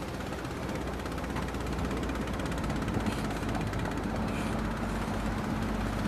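A fishing boat's engine running steadily: a low drone under an even wash of noise, with a steady low hum joining about halfway through.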